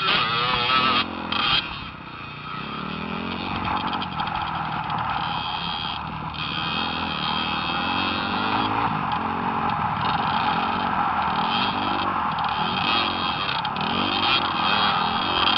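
Dirt bike engines revving on a motocross track, the pitch rising and falling with the throttle, with a short dip in loudness about two seconds in.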